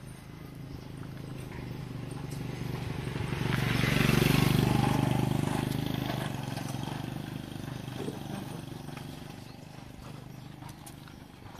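Motorcycle engine passing by, growing louder to a peak about four seconds in and then fading away over the next several seconds.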